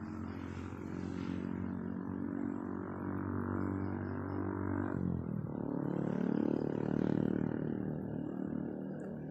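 A motor engine running with a steady droning hum. About five seconds in its pitch drops sharply, then rises and swells again.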